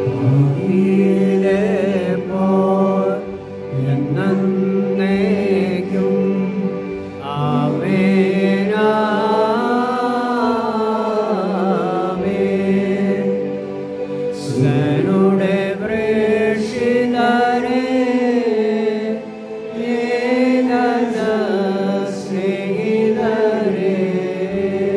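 A liturgical hymn sung in a chant-like melody by a single line of voice, over steady held accompanying chords, with short breaths between phrases.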